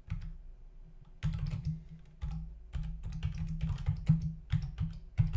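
Computer keyboard being typed on: several quick runs of key clicks with short pauses between them, as a command is typed out.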